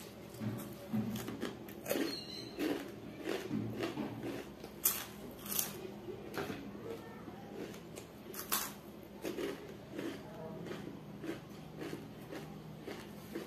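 A person eating by hand: irregular chewing and mouth smacks, with a few sharper clicks.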